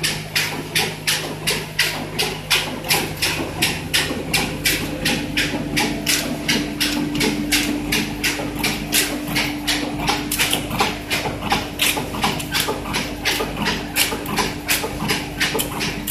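Capsule blister packing machine running, with a steady, even clacking of about three strokes a second over a constant machine hum. The hum steps up to a higher note about four seconds in.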